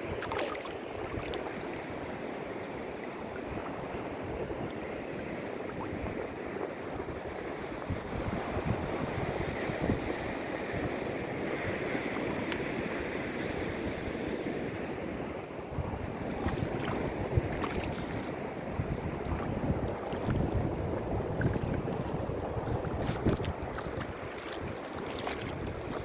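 Sea waves washing, with wind gusting on the microphone.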